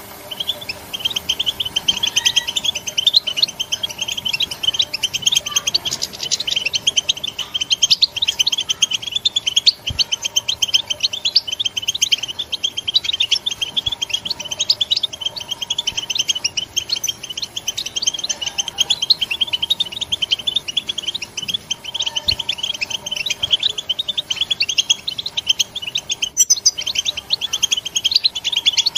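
European goldfinch calling in batbata, a fast, continuous run of short high chirps with no pauses. This is the call keepers play to set a caged goldfinch singing.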